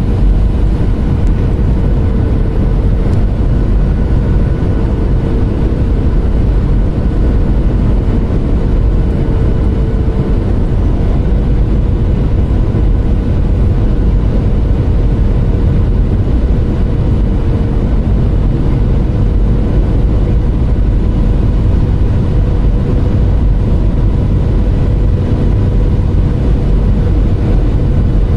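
Airliner cabin noise on final approach: the steady, loud rumble of the engines and rushing air, with a steady hum running through it.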